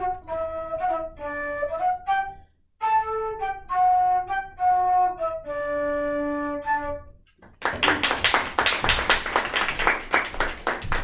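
Solo transverse flute playing a slow melody of held notes, with a short break about two and a half seconds in, ending about seven seconds in. A small audience then applauds.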